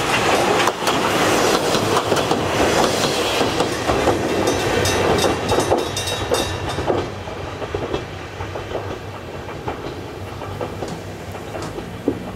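Kominato Railway KiHa 200 diesel railcar running over the level crossing, its wheels clacking over the rail joints. After about seven seconds it fades as the train moves away.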